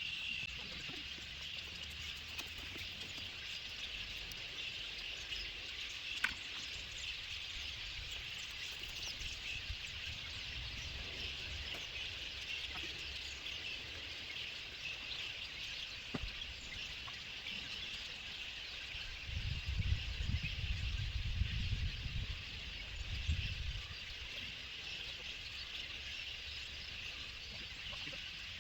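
Steady high-pitched chorus of calling wildlife by a creek, with a sharp tick about six seconds in and a few seconds of low rumble about two-thirds of the way through.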